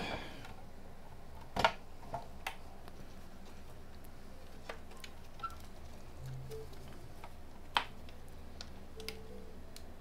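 Scattered plastic clicks and taps from a handheld scan tool's plastic housing being handled and pried at its seam to release the case clips, with two louder knocks about a second and a half in and near the eight-second mark.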